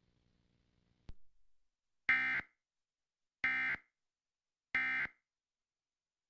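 Emergency Alert System end-of-message code: three short bursts of digital data tones, about 1.3 s apart, which close the alert. A faint click comes about a second in.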